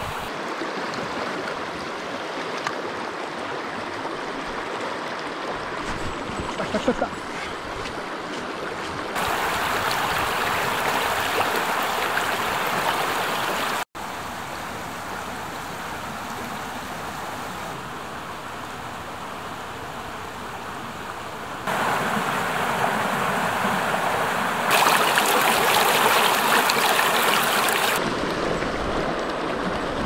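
Shallow mountain stream running over rocks, a steady rush of water that jumps abruptly louder or softer at several cuts, with a brief drop-out a little before the middle.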